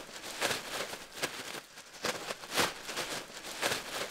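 A few soft, short taps over a faint steady hiss, roughly one every three-quarters of a second.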